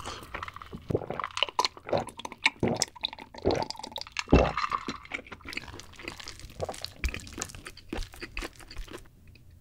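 Close-miked drinking from a glass jar: water taken in gulps, with several loud swallows and wet mouth clicks. Near the end, a wooden spoon scrapes cooked white rice from a bowl into the king crab shell.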